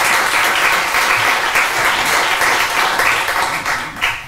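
Audience applauding with many hands clapping, breaking off quickly near the end.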